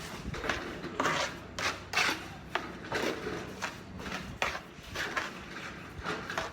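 Hand plastering tool scraping and spreading cement plaster on a wall, in short repeated strokes about two a second.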